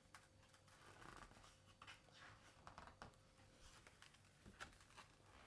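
Near silence, with faint rustles and light scratches of a picture book's paper pages being handled and turned.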